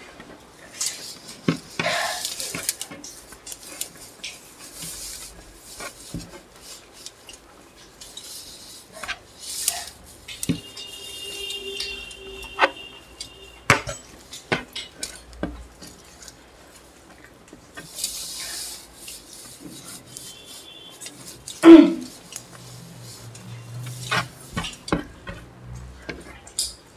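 Cutlery clinking and scraping against plates as instant noodles are eaten, in scattered short clicks. About two-thirds of the way through there is one louder, short sound that falls in pitch.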